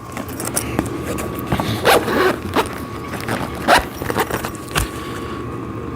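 A zipper on a padded cover being pulled in a few short strokes, with rustling and light clicks as the pad is handled.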